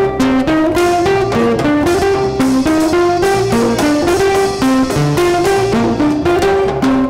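Live Latin band playing an instrumental passage: a saxophone melody over strummed acoustic guitar, upright bass and hand drums in a steady dance rhythm.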